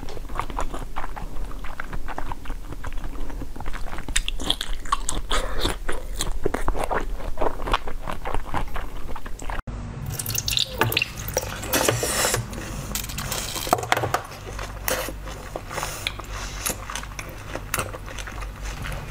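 Close-up eating sounds of jelly being bitten and chewed: wet, squishy mouthfuls with a quick run of small crunchy clicks. The sound breaks off for an instant about halfway through, then the biting and chewing start again on another fruit-filled jelly.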